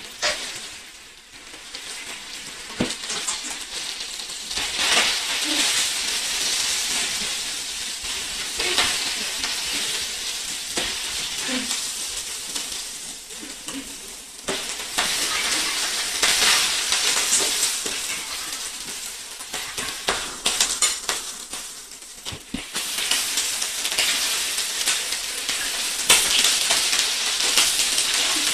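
Chicken feet frying in hot oil: a steady sizzle full of crackles and pops, growing louder in stages.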